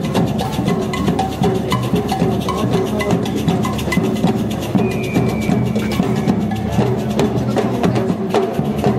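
Marching drumline of snare drums, pitched bass drums and cymbals playing a fast, busy rhythm together.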